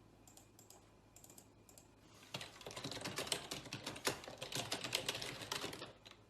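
A quiet, rapid, irregular run of short clicks and taps, starting about two seconds in and stopping shortly before the end.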